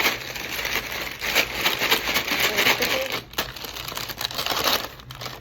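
Rolled-shut paper fry bag being shaken with fries and seasoning inside: fast, continuous papery crinkling with a short break about three seconds in, dying away near the end.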